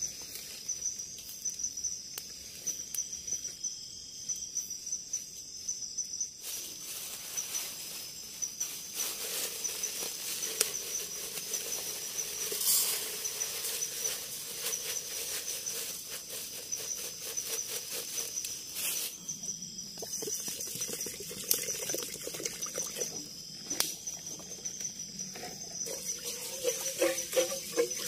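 Forest insects trilling in a steady, pulsing high-pitched chorus, with scattered crackles and pops from a wood cooking fire. A rushing hiss comes in about six seconds in and fades out around twenty seconds.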